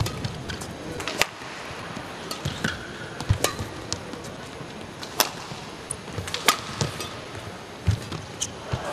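Badminton rally: rackets striking the shuttlecock in sharp cracks, one every second or two.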